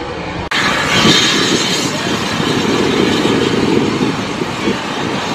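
Steam-hauled passenger train passing directly below, its coaches giving a steady rumble on the rails, with a brief drop-out about half a second in.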